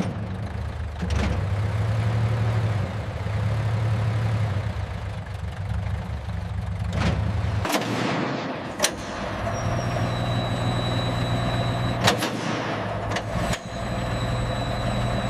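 A heavy vehicle engine running with a low, steady drone, broken by several sharp bangs. The drone drops out briefly about eight seconds in, then picks up again.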